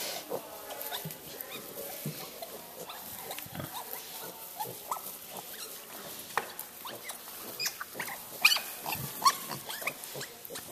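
Large Black pigs, a sow with her nursing piglets, making many short grunts and squeaks. The loudest, sharpest call comes about eight and a half seconds in.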